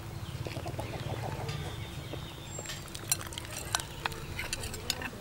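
A ladle working in a large aluminium pot of fish soup, then a few sharp clinks and splashes as pieces of fish are tipped in from a ceramic bowl, over a steady low rumble.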